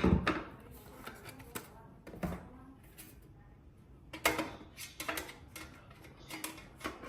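Irregular clicks and knocks of hard parts being handled, as a hard drive is fitted into its enclosure, with a denser run of clicks from about four seconds in.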